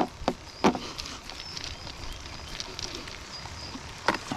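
Handling of a weighted monofilament cast net and its hand line: a few sharp knocks in the first second and another near the end, over faint high chirps from small birds.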